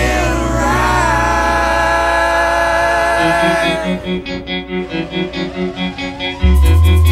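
Background music: a held, sliding melody over a low drone, which gives way to a pulsing rhythm about four seconds in, with heavy bass entering near the end.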